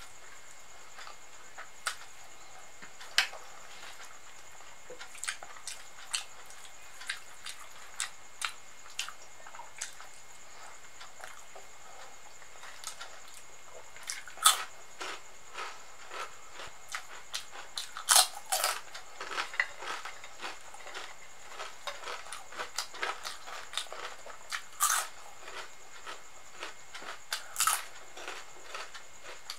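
Close-up eating sounds: soft mouth clicks of chewing soft rice and potato, then from about halfway sharp crunches of biting and chewing crisp crinkle-cut fried snacks, the loudest coming in clusters in the second half.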